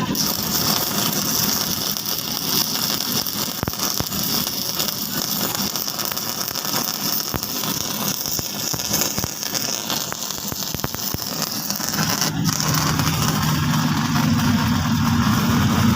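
Stick (MMA) arc welding from a Panasonic YD400AT3 inverter welder: the arc crackles and hisses steadily, showing the repaired machine now welding. About twelve seconds in, the arc stops and a steady low hum takes over.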